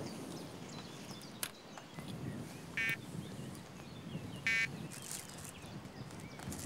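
Electronic bite alarm on a carp rod pod giving two short buzzy beeps, about a second and a half apart, as the rods are handled and set. A sharp click comes just before, with handling rustle and small bird chirps in the background.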